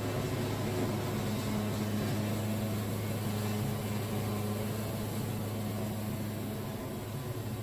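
Sawmill engine running at a steady speed, a constant low hum with no change in pitch or load.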